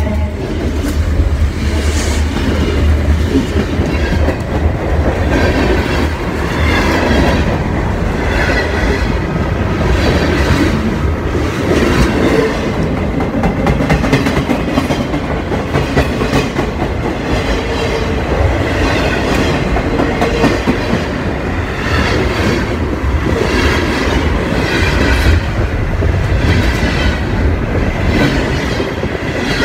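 Freight cars of a Huron & Eastern train rolling past close by, their wheels clicking steadily over the rail joints, with occasional faint wheel squeals. A low hum fades out in the first few seconds.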